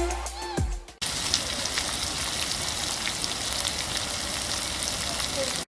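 Food frying in a pan: a steady sizzle with small crackles, starting abruptly about a second in and cutting off suddenly at the end.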